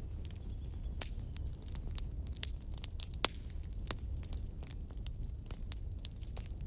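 Thick cashew-and-cream gravy cooking in an aluminium kadai: scattered sharp pops and crackles over a steady low rumble.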